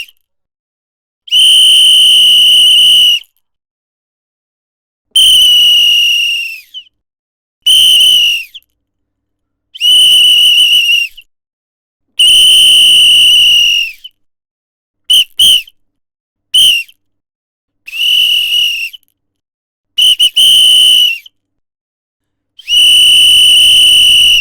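A whistle blown in about a dozen blasts at one steady high pitch, separated by silences. Some blasts are long, up to about two seconds, and some are short toots. A couple of the longer blasts have a slight trill.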